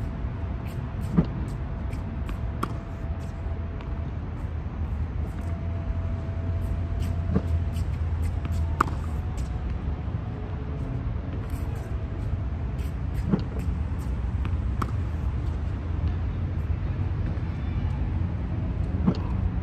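Tennis balls being hit with rackets: sharp pops every few seconds, mostly in pairs about a second and a half apart, over a steady low rumble.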